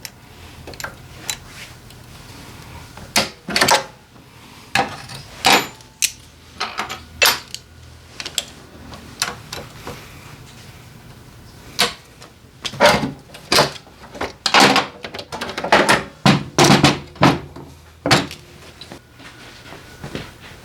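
Irregular sharp clacks and knocks of metal tools and parts being picked up and set down, thickest in a run of rapid knocks about twelve to eighteen seconds in, over a faint steady low hum.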